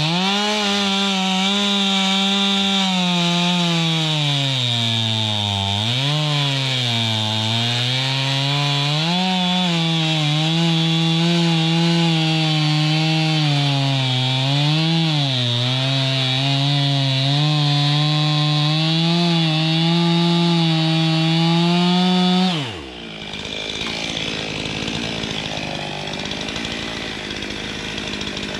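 Two-stroke chainsaw running hard and cutting wood, its engine note sagging under load and picking up again several times. It stops abruptly about three-quarters of the way through, leaving a quieter, lower noise.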